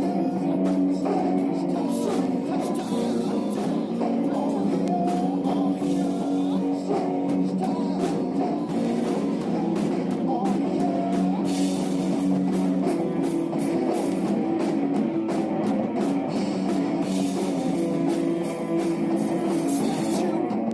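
Live rock band playing: electric guitar and drum kit, with a steady beat of drum hits.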